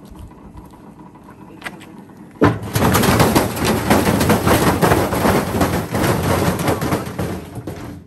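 Washing machine loaded with heavy bricks, starting to spin: a sudden loud racket of rapid banging and rattling begins about two and a half seconds in as the drum slams the bricks around and the whole machine shakes and lurches, then it dies down near the end.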